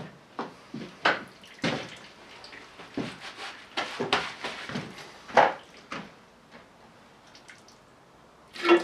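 Irregular short clicks and knocks of hand tools and metal parts being worked on the diesel engine, thinning out after about six seconds, with a louder knock near the end.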